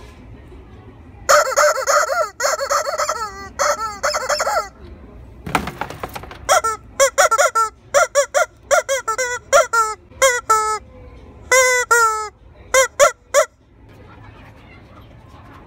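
Rubber squeaky chicken toys squawking as they are squeezed. First come a few longer, wavering squawks, then a brief rustle, then a run of short squawks about two a second that stops near the end.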